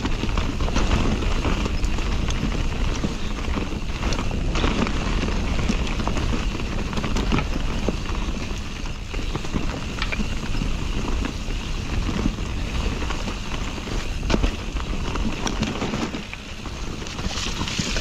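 Nukeproof Mega enduro mountain bike descending a dirt forest trail: steady rush of tyre and wind noise, with frequent clicks and knocks as the bike rattles over roots and stones.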